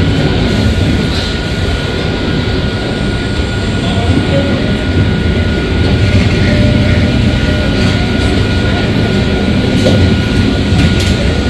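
Passenger train rolling slowly along a station platform: a steady, loud low rumble of coaches and wheels, with a faint steady whine over it.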